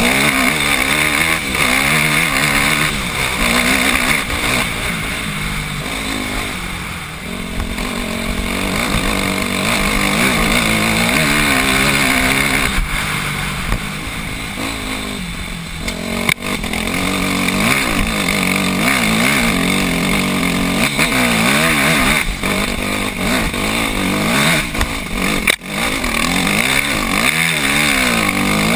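Dirt bike engine revving up and down under load on a hill climb, heard close up from the rider's helmet camera, with the engine cutting out briefly twice.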